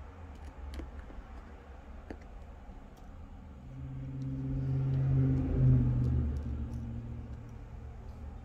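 Small sharp clicks and ticks of a precision screwdriver and tiny screws being fitted into a phone's internal bracket. Under them a low hum swells, is loudest about five to six seconds in, then fades.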